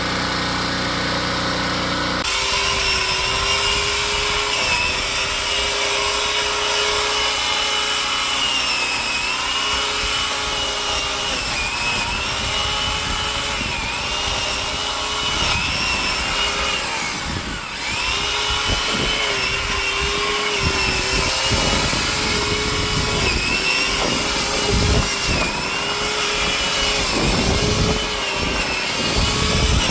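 Electric pole pruning saw starting up about two seconds in and running, its motor whine dipping and recovering again and again as it cuts into branches, with a portable generator's engine running underneath.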